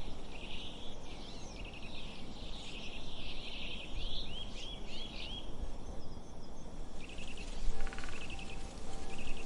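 Small birds chirping and twittering in quick repeated phrases over a steady low background hiss. Near the end, a few steady tones come in, like music starting.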